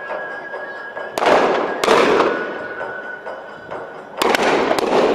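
Miniature cannons on model galleons firing in a mock broadside: four sharp bangs in two pairs, one pair about a second in and another about four seconds in, each dying away briefly.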